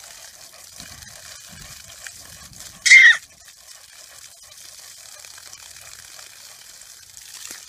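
Garden hose spraying water onto grass, a steady hiss. About three seconds in comes one short, loud, high-pitched squeal, likely from the toddler playing in the spray.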